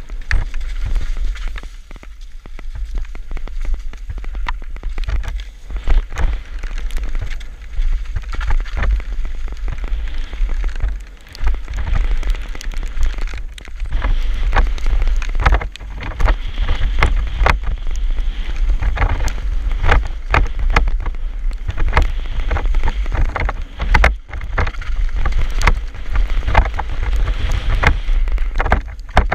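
Downhill mountain bike descending a wet trail: tyres crunching over gravel and dirt, and the bike rattling over bumps with frequent sharp knocks. Wind buffets the microphone as a steady low rumble.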